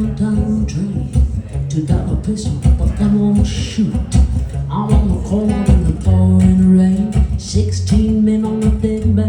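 Band playing a bluesy rock song, with bass, drums and guitar under a woman's singing voice.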